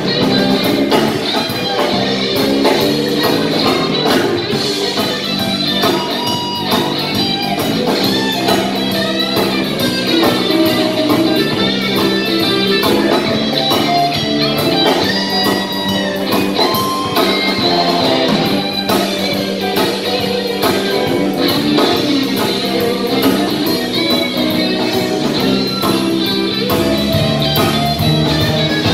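Live band playing an instrumental passage: electric guitars over bass guitar, drum kit and keyboard, loud and unbroken.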